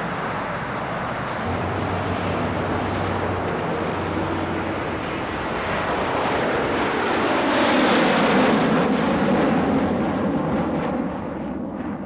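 Steady outdoor rumble of distant traffic that swells as a vehicle passes, loudest about eight seconds in, then drops away near the end.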